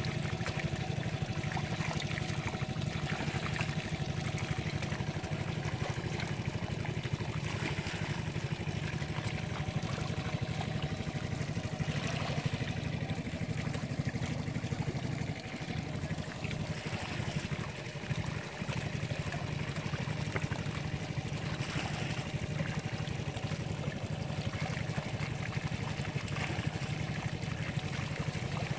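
Water pouring steadily through a narrow cut in a mud bank, over a bamboo screen into a woven bamboo basket, with a steady low hum underneath.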